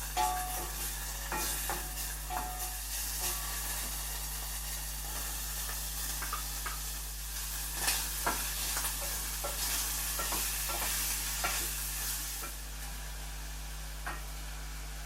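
Food sizzling in oil in a frying pan while it is stirred, with frequent clicks and scrapes of a utensil against the pan. The sizzle eases off near the end, and a steady low hum runs underneath.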